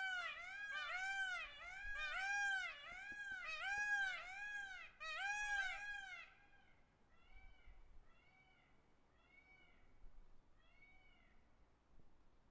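Peacock calling in a rapid series of short, arched, mewing calls, about two a second. After about six seconds the calls turn much fainter and continue more sparsely.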